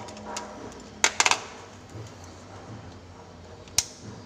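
A few sharp clicks and knocks as a multimeter and its probe leads are picked up and handled: one knock about a second in, a quick run of clicks just after it, and another click near the end.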